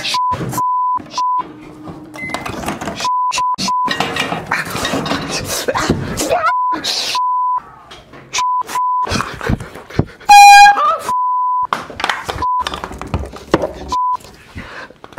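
A man's frantic shouting, chopped up again and again by censor bleeps: a steady beep tone cutting in and out. About ten seconds in there is a brief, very loud, horn-like blare.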